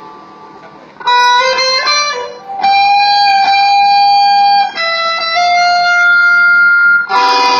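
Electric guitar played solo in a sound check. After about a second of fading quiet comes a quick run of rising notes, then two long sustained notes held about two seconds each, and a louder, fuller burst of notes near the end.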